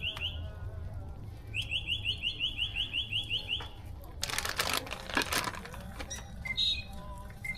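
A bird singing a rapid series of short rising notes, about five a second for some two seconds. This is followed by a burst of noise lasting about a second and then a few softer chirps.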